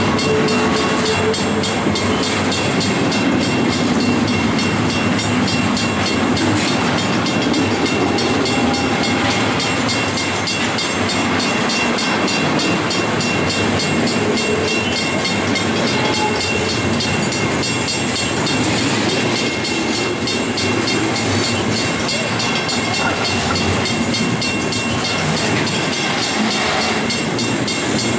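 Double-stack intermodal container train rolling past at trackside: the steady, loud rolling noise of its steel wheels on the rails as the well cars go by.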